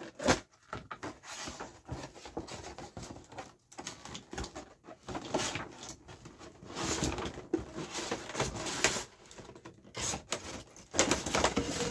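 Cardboard box being opened and its packaging handled: irregular rustling, scraping and sliding of cardboard, with a sharp click just after the start.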